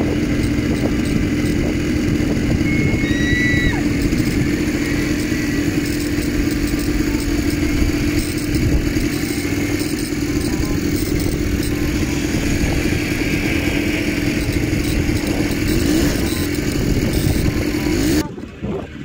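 Quad bike (ATV) engine running at steady revs, a constant drone with a rough low rumble beneath it. It cuts off near the end.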